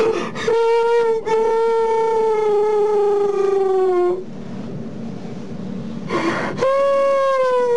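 A woman wailing in grief: two long cries that each slide slowly down in pitch, the second starting about six and a half seconds in, each preceded by a sharp gasping in-breath.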